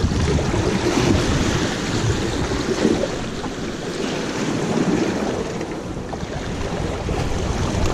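Surf washing against jetty rocks, mixed with wind buffeting the microphone: a steady rushing that swells and eases.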